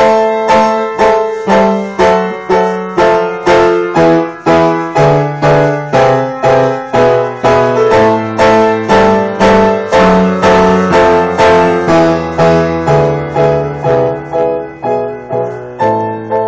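Piano playing a steady run of repeated struck chords, about two a second, over a bass line that steps between notes.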